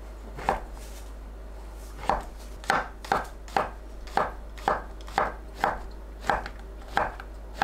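Chef's knife slicing king oyster mushrooms into strips on a wooden cutting board: one cut, a short pause, then steady cuts about two a second, each a short knock of the blade on the board.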